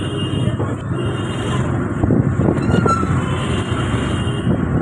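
Road traffic noise on a busy city street: a steady mix of vehicle engines and tyre rumble, heard while moving along the road, with a brief faint high tone about three seconds in.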